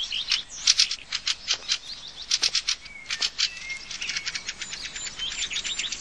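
Fieldfare giving its alarm call, a harsh, rapid chattering of sharp clicks in runs, raised at a raven, a predator threatening the nests. The chatter is loudest over the first three seconds, then goes on softer and quicker.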